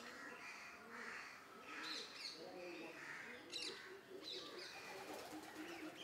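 Faint mixed birdsong: scattered high chirps over lower, short repeated calls.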